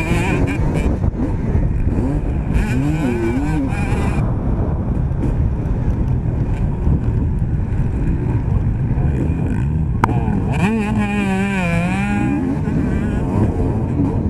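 Motocross dirt bike engine revving up and down in pitch as the rider accelerates and backs off along the track, with other motocross bikes racing close ahead, over a dense low rumble. A single sharp knock about ten seconds in.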